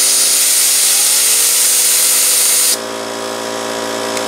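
Compressed air hissing loudly onto a fidget spinner, spinning it up to high speed. The air cuts off suddenly about three seconds in, leaving the spinner's ball bearing whining steadily on its own, a bearing that is starting to wear out.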